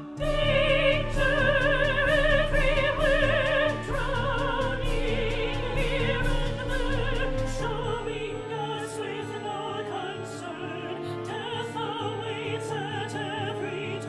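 Operatic singing with wide vibrato over an orchestra playing a steady, repeating bass figure; it grows quieter in the second half.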